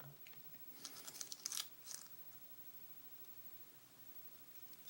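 Faint light clicks and a short scrape of small metal lock parts, the pins and plug of a pin-tumbler lock being handled in a tray, for about a second, then near silence.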